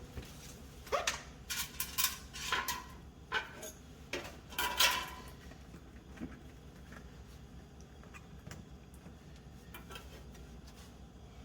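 Clattering knocks and clicks of panels and parts being handled while the refrigerator's control-board cover is refitted, with the loudest about five seconds in, then only a low steady background.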